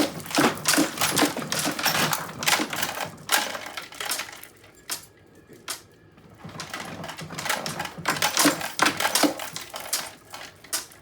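Dollhouse being shaken, its small furniture and pieces rattling and clattering in dense runs of quick clicks and knocks. The rattling thins out in the middle, picks up again, and dies away near the end.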